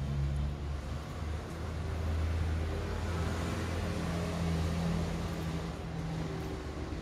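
A low, steady motor hum, a little louder through the middle.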